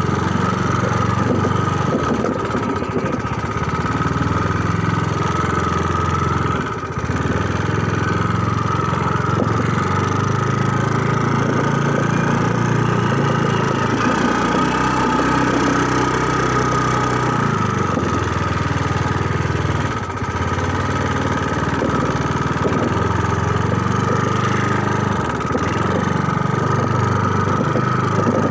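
Small motorcycle engine running steadily, its pitch stepping up and down as the speed changes.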